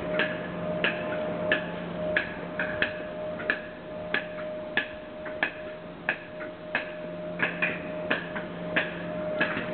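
Footsteps on a station platform, sharp clicks at walking pace, about one and a half a second, over the steady hum of a Class 57 diesel locomotive idling alongside.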